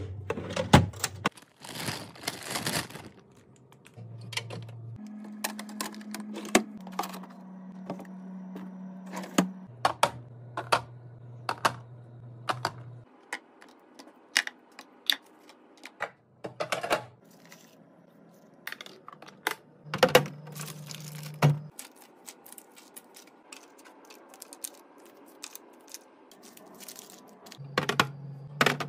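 Clear plastic fridge organizer bins and wrapped food packages being handled: irregular sharp clicks and taps of hard plastic being set down and slid into place, with a rustle of plastic wrap near the start.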